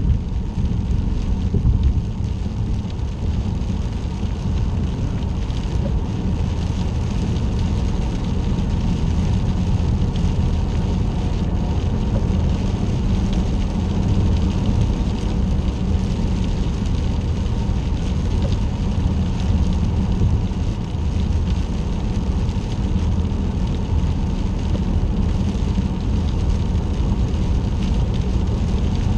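Steady road noise of a car cruising on a wet freeway, heard from inside the cabin.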